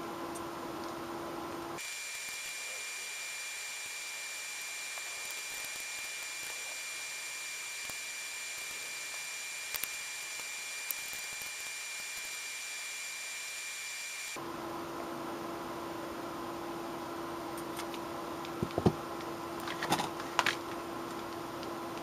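Steady background hum and hiss whose tone changes abruptly about two seconds in and changes back about fourteen seconds in. A few light clicks and taps come from handling the bottle and sequin trim, mostly near the end.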